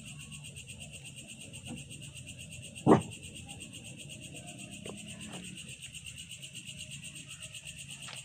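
Night insects trilling steadily in a high, pulsing drone, with one short, loud thump about three seconds in.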